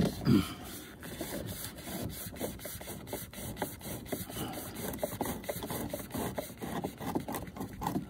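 Small Phillips screwdriver scraping and clicking as it turns a screw deep in a door-handle recess, with the hand rubbing against the door-panel trim. The strokes are short and irregular, several a second.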